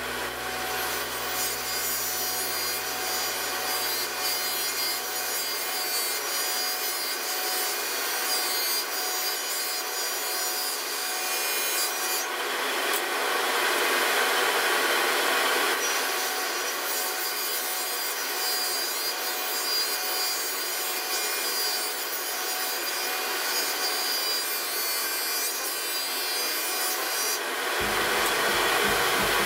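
Table saw running and ripping through a glued-up strip of small wooden pieces: a steady whirring cutting noise, louder in the middle and again near the end as the wood is fed through the blade.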